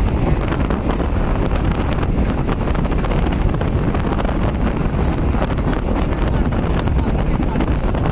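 Wind buffeting the microphone over the steady rumble of a moving passenger train.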